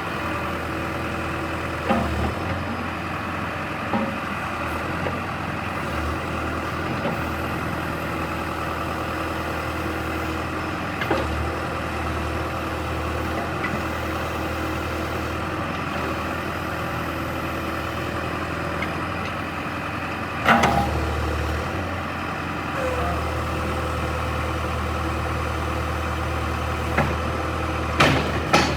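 John Deere 310E backhoe's diesel engine running steadily at idle, with occasional sharp clunks and knocks, the loudest about two-thirds of the way through and another near the end.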